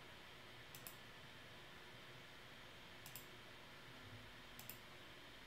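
Faint computer mouse clicks over near-silent room tone: a pair of clicks about a second in, another near three seconds, and two more about four and a half seconds in.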